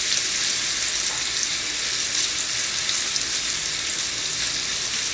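Thinly sliced beef brisket and its rendered fat sizzling steadily in a frying pan, a high hiss with fine crackles, as a layer of shredded green onion is spread over the meat.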